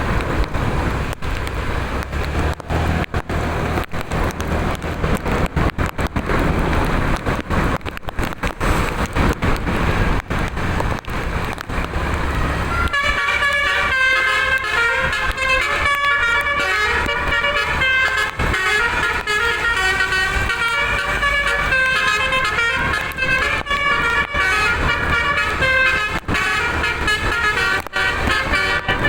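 A noisy rumble with crackling for about the first dozen seconds. Then a bus's multi-trumpet telolet horn plays a fast tune of rapidly changing notes, going on to the end.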